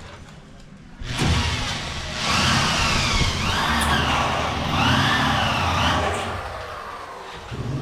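A motor vehicle passing close by, its engine rising and falling in pitch twice as it revs, starting suddenly about a second in and fading near the end.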